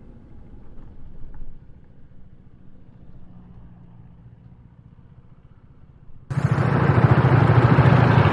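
Motorcycle engine running, heard faintly at first, then loud and close from about six seconds in, its exhaust pulsing rapidly under a layer of hiss.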